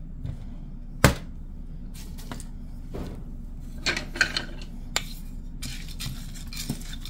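Stainless-steel skillet being handled on the stovetop: one sharp metal clank about a second in, then scattered light clinks and scrapes as dehydrated ground beef in a little water is spread and stirred in the pan.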